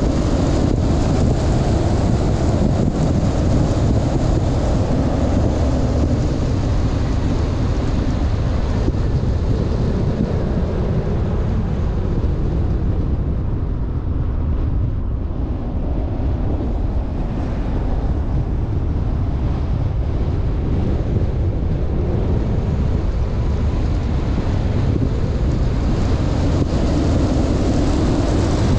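Steady road and wind noise from a moving car, mostly a low rumble. It eases a little about halfway through and builds again near the end.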